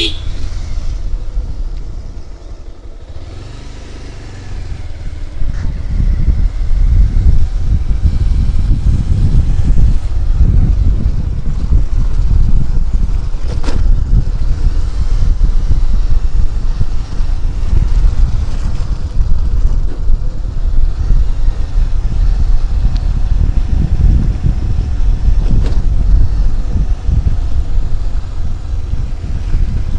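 Motorcycle running steadily on the move, under heavy wind noise on the microphone; quieter for the first few seconds, louder from about five seconds in.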